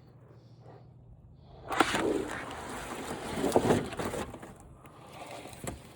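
Large plastic panels and sheets from a disassembled flat-screen TV being lifted out and handled, rustling and clattering. The noise starts about two seconds in, dies down, and comes back briefly near the end.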